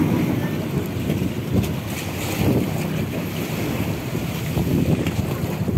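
Wind buffeting the microphone, a rough, steady rushing, with the wash of the sea around a fishing boat.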